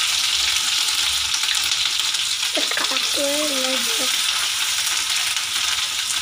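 Green chilli, ginger and garlic paste sizzling as it fries in hot oil in a kadhai, stirred with a steel ladle. The sizzle is steady throughout.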